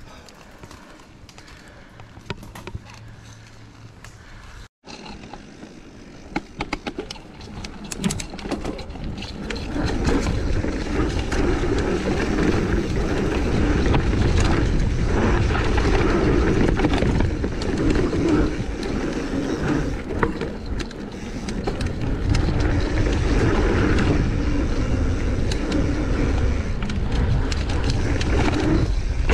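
Mountain bike rolling over a dirt singletrack trail: a steady rumble and rattle of tyres and bike, quiet at first and loud from about ten seconds in.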